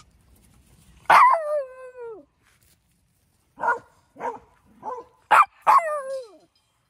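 A dog barking: one drawn-out bark about a second in that falls in pitch, then a run of five short barks near the end, the last trailing off. The dogs are waiting for the frisbee to be thrown.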